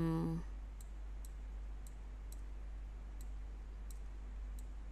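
Computer mouse button clicking, faint sharp clicks about twice a second, as components are selected and dragged in a circuit simulation program, over a steady low hum.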